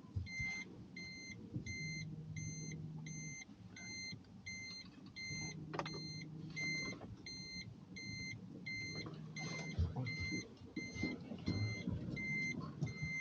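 A car's in-cabin warning beeper sounding short, evenly spaced beeps, about two a second, as the car is manoeuvred into a parking spot.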